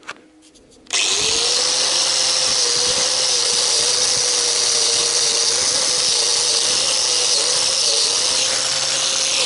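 Angle grinder with a wire brush starting up abruptly about a second in and running at steady speed while it brushes the exhaust manifold flange clean, a steady motor tone under a loud scouring hiss. It shuts off at the end, its pitch falling as it winds down.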